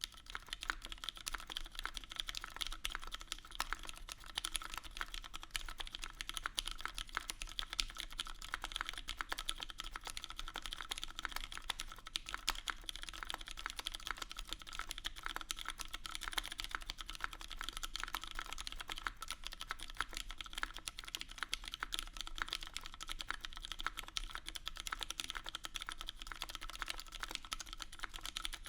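Continuous fast typing on a mechanical keyboard with lubed Cherry MX Brown tactile switches in an aluminum case with an aluminum plate, fitted with GMK doubleshot ABS keycaps: a dense, even patter of keystrokes.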